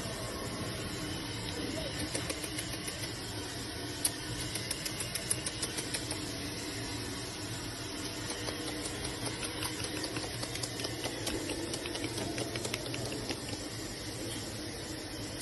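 Havanese puppies' claws clicking and tapping on a tile floor as they scamper and wrestle: a run of light, irregular clicks over a steady hiss, thinning out near the end.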